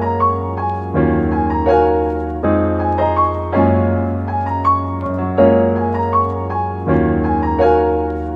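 Background piano music: slow chords, a new one struck about every second and a half, with a lighter melody on top. The music breaks off at the very end, the last notes dying away.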